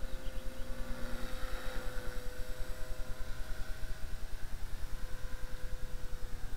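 Small electric 300X RC helicopter in flight, its motor and rotor giving a steady whine that dips slightly in pitch about two seconds in, over a rapid, even pulsing.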